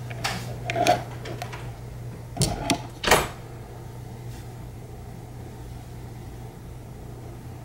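Handling sounds of an Apple Watch with a leather band being laid on a cardboard box and fitted to its magnetic charger: a few soft knocks and taps over the first three seconds, the loudest about three seconds in. A steady low hum runs underneath.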